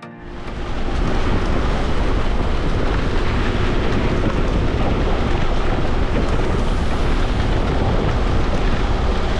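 Wind and road noise in a moving van on a wet highway, the wind buffeting the microphone with a heavy, steady rumble. It fades up over the first second and then holds steady.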